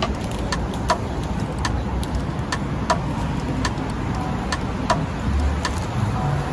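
City street traffic noise, with a sharp ticking repeating about two to three times a second.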